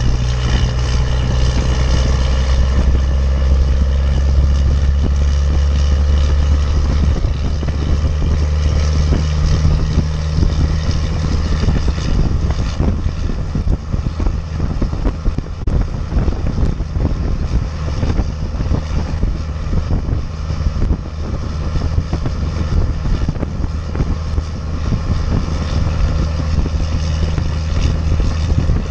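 12-valve Cummins 5.9 inline-six turbo diesel running steadily under load while towing a heavy trailer, through a 5-inch exhaust; its note changes pitch about seven to ten seconds in.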